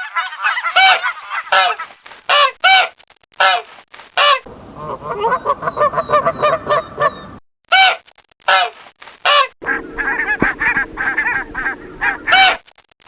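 Geese honking: many short, loud calls, one after another, with the background noise changing abruptly a few times between stretches of calls.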